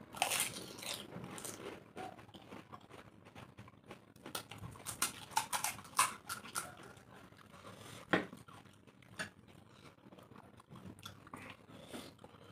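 Crisp, hollow pani puri shells crunching as they are bitten and chewed, and cracking as they are broken open by hand. Sharp crunches come in clusters, busiest about a second in and again around the middle.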